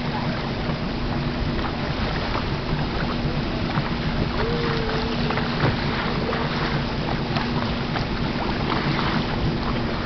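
Boat motor running with a steady hum, with wind buffeting the microphone.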